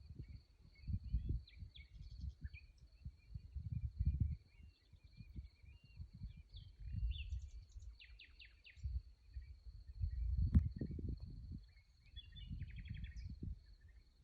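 Rural night ambience: a steady high-pitched insect trill, with scattered short chirps and two quick chirp series from night birds and insects. Underneath is an uneven low rumble, and a sharp click comes about ten and a half seconds in.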